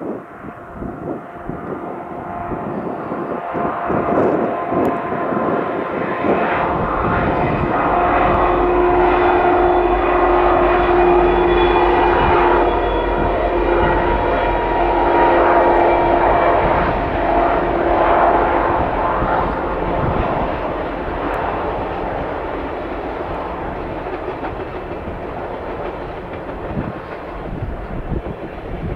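EMD SD70M diesel-electric locomotive, with its 16-cylinder two-stroke 710 engine, passing at a distance: a heavy engine drone builds and carries a steady whine at its loudest, then slowly fades as the string of passenger cars rolls by.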